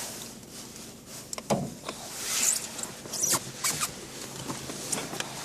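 Lada Priora's 1.6-litre 16-valve VAZ-21126 engine idling warm and running evenly, with no piston knock: the engine has been rebuilt. Several short hissing swishes and clicks sound over it.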